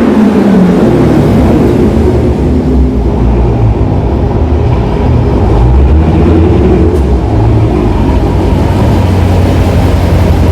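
Dodge Charger Scat Pack's 392 HEMI V8 with a muffler delete, its exhaust loud and deep: a rev falls away in the first second, then the engine runs on in a low, uneven rumble. The sound echoes under a parking structure.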